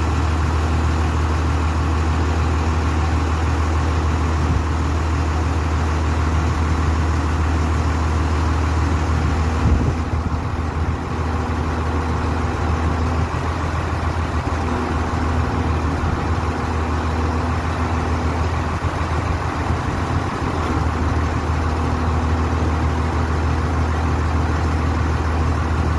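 XCMG QY25K truck crane's diesel engine running steadily, a constant low drone, while the crane holds a hoisted load. One short sharp knock about ten seconds in.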